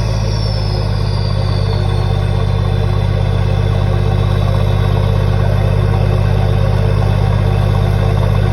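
Toyota 80 Series Land Cruiser's 1HD-T turbo-diesel straight-six running steadily through a 3-inch exhaust, with a high turbo whistle falling in pitch and fading over the first couple of seconds.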